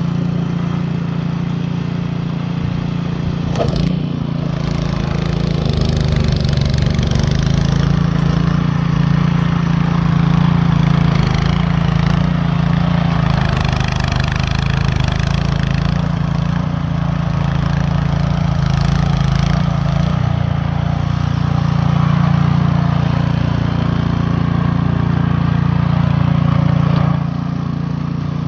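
Cub Cadet two-stage snow blower engine running steadily, its level rising and falling slightly, then dropping a little near the end.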